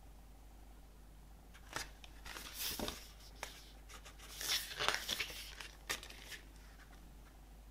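Hands handling CD album packaging: short spells of paper and plastic rustling and crinkling with a few small taps, starting about two seconds in and dying away near the end.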